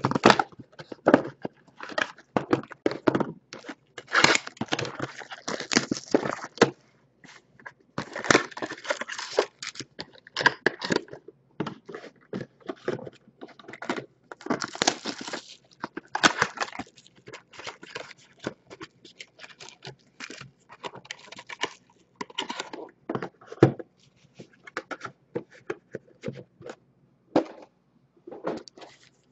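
2019 Bowman Chrome cardboard card boxes being opened and their foil trading-card packs handled and stacked, with irregular crinkling, tearing and tapping.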